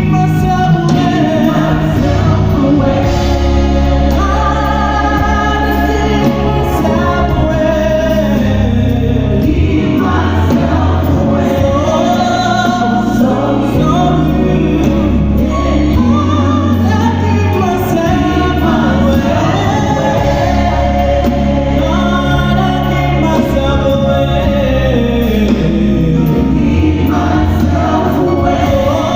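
Gospel choir singing with amplified band accompaniment and a strong bass line, during a sound check.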